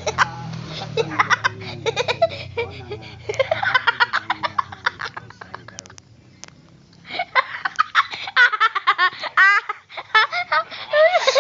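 Laughter in loud, rapid pulsed bursts, with a lull of about a second and a half around the middle before it picks up again.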